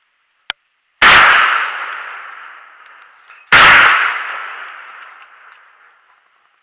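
Two shotgun shots about two and a half seconds apart, each echoing and dying away over about two seconds. A single sharp click comes just before the first shot.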